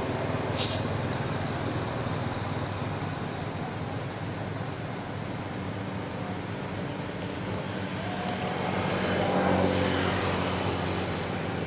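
Steady hum of a motor vehicle engine, growing louder about nine to ten seconds in as it passes, then easing off.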